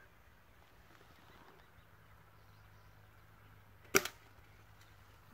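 A single air rifle shot about four seconds in: one sharp crack, followed a moment later by a fainter second knock.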